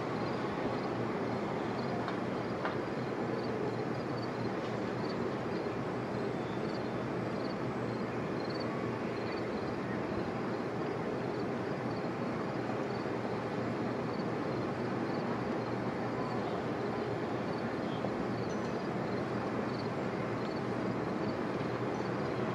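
Racing powerboat's engines heard from far off as a steady, even drone that neither rises nor falls.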